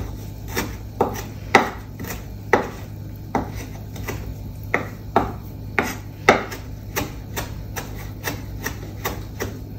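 Kitchen knife chopping fresh cilantro leaves on a cutting board: sharp, irregular taps of the blade on the board, about one or two a second.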